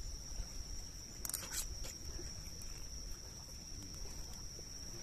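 Crickets chirping in a steady, high, unbroken chorus, with a brief clatter about a second and a half in.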